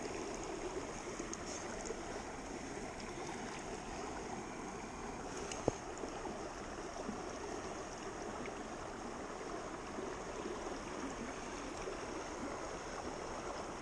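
Shallow creek flowing steadily, an even rushing wash of water, with one sharp click about six seconds in.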